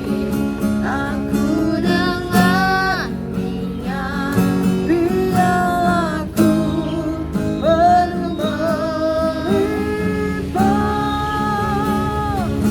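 Acoustic guitar accompaniment with a slow melody of long held notes over it, and no words.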